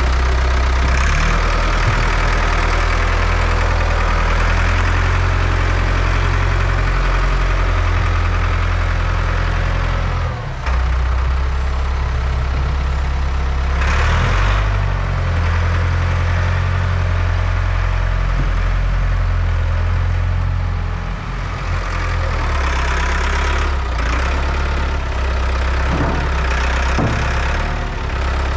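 STIHL chainsaw engine running steadily at low speed, with a few short louder bursts partway through and near the end.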